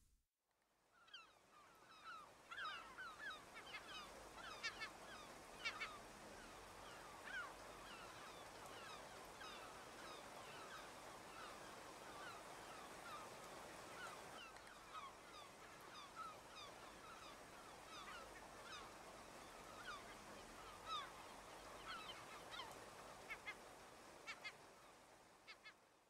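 A flock of waterbirds calling: many short, overlapping honking calls, busiest in the first few seconds and again near the end, over a steady outdoor hiss. The sound fades in just after the start and fades out at the end.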